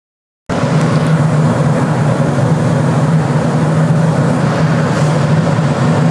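Steady aircraft cabin noise: a loud, even rush with a strong low drone, cutting in suddenly from silence about half a second in.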